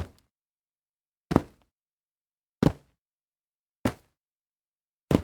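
Feet landing on dirt after jumps: four separate short, dull thuds about every 1.3 seconds, each dying away quickly.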